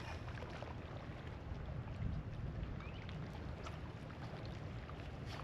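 Steady low rumble and wash of water and wind at a fishing dock, with a few faint clicks scattered through it.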